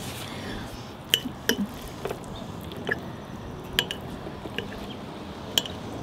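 A metal fork clinking against a white ceramic bowl as salad is scooped up: about six short, separate clinks spread over the few seconds, the loudest about a second in.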